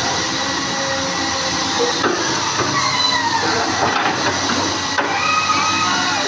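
Komatsu heavy machine running: a steady loud hissing noise with high metallic squeals that slide down in pitch, a couple of short knocks, and steadier squeals near the end.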